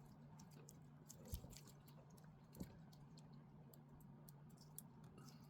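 Near silence with faint scattered clicks and two light taps, from small drone motor connectors and wires being handled and plugged into the flight controller; a faint low hum underneath.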